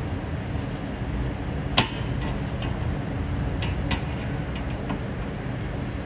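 Steady low machine hum with a sharp metallic clink about two seconds in and a few fainter clicks later.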